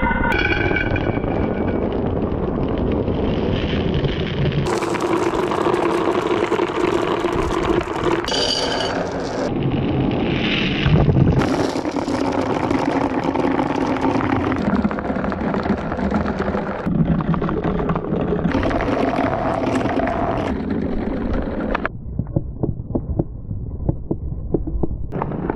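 Many glass marbles rolling and clattering down marble-run tracks, a dense continuous rolling rumble. Its character changes abruptly several times, and it thins near the end as fewer marbles roll.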